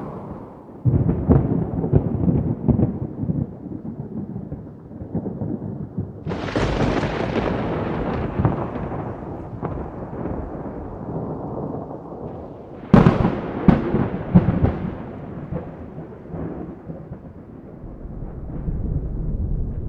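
Thunderstorm: rolling thunder. Sharp cracks come about a second in and again about thirteen seconds in, each followed by crackling rumbles. A louder roll builds about six seconds in and fades slowly.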